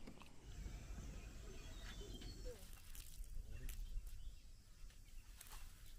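Quiet outdoor background: an even low rumble with faint voices and a few faint ticks.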